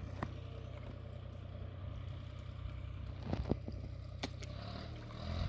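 A steady low motor-like hum, with a few short smacking clicks of fish sucking floating bread off the pond surface, two close together about three and a half seconds in.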